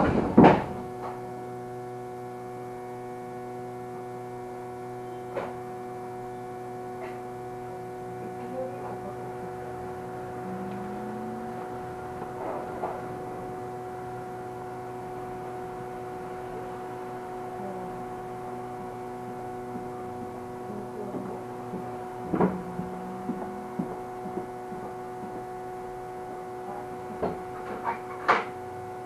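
Steady electrical hum inside a Fukui Railway tram car: one constant tone with several overtones, broken now and then by a few faint knocks and clicks.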